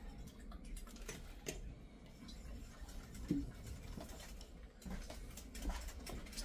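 Faint, irregular light taps and clicks of kitchen work at a small mixing bowl as a crab cake mixture is seasoned and worked by hand, with one slightly louder knock about halfway through.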